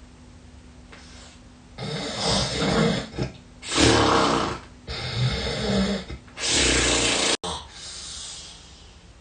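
A person snoring heavily: after a quiet start, a quick run of loud, rasping snores about a second each, with short breaks between them, dying away near the end.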